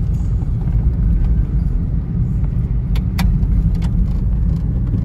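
Steady low road and engine rumble inside a moving car's cabin, with a few light clicks about three seconds in.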